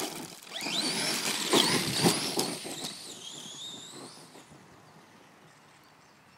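Redcat Earthquake 8E RC truck's electric motor whining, rising in pitch twice as it accelerates over rocky ground, with gravel scattering under the tires. Then a high, wavering whine fades away as the truck drives off.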